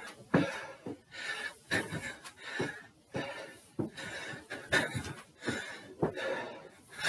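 Footfalls thudding up a wooden-framed indoor staircase at a steady climbing pace, with the climber's heavy panting breaths between the steps.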